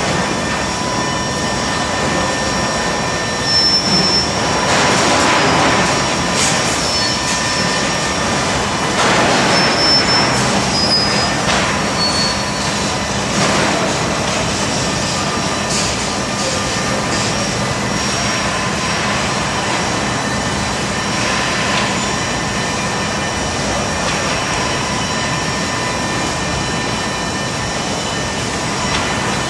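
Automatic board-pack dismantling and planer-feeding line running: a steady machine drone with several fixed whining tones, and louder swells of rushing noise about five, ten and thirteen seconds in as boards move through.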